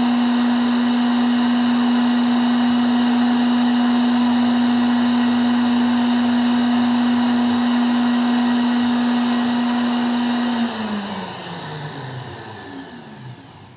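Electric mixer beating eggs, its motor running at a steady high speed. About three-quarters of the way through it is switched off, and the motor winds down with a falling pitch and fades.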